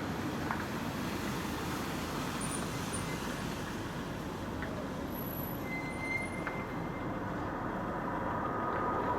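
A steady low rumbling drone over the city, reported as a strange sound in the sky, with faint higher tones coming in near the end.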